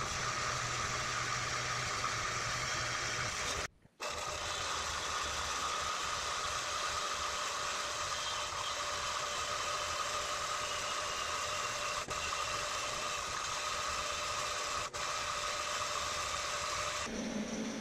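Vertical band saw cutting steel plate: a steady whir and hiss of the running blade in the metal, broken by a brief silence about four seconds in. Near the end it gives way to a different, lower steady hum.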